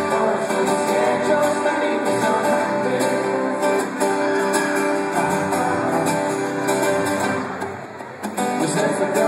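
A band playing live on acoustic guitars, strumming chords together, with a brief dip in level about eight seconds in.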